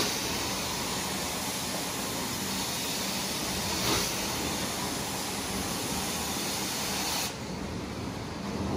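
Carpet-cleaning extraction wand spraying and sucking across the carpet, a steady hiss. The hiss drops and softens about seven seconds in.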